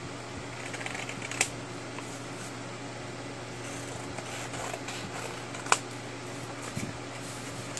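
Book-page paper rustling as it is handled and positioned, with two sharp clicks, one about a second and a half in and one near six seconds, over a steady low hum.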